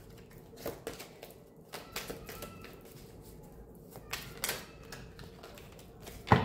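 Tarot cards being shuffled and handled on a table: a run of irregular light clicks and taps, with one louder snap near the end, over a faint steady hum.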